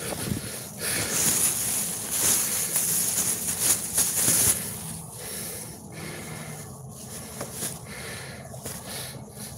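Plastic shopping bag rustling and crinkling close to the microphone for a few seconds, then a softer rustling noise that comes and goes about once a second.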